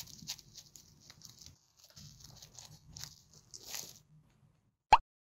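Pet rabbit nibbling and chewing dry hay, a quick string of small crunches that stops about four seconds in. Near the end comes a single short, sharp pop, louder than the chewing.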